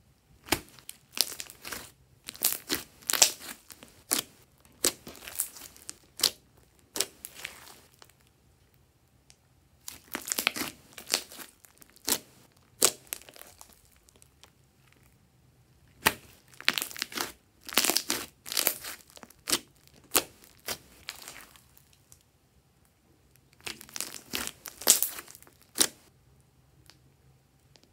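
Thick glossy slime being stretched, pressed and squished by hand, giving clusters of sharp crackling clicks with a few quiet pauses between.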